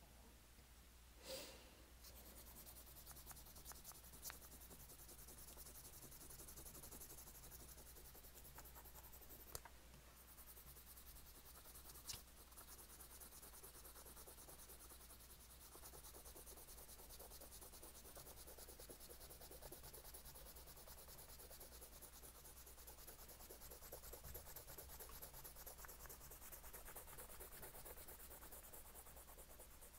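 Drawing on paper: a drawing tool scratching steadily and faintly across the page, with a few small clicks in the first half.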